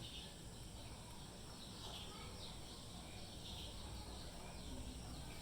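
Quiet background with faint high chirps repeating over a steady hiss.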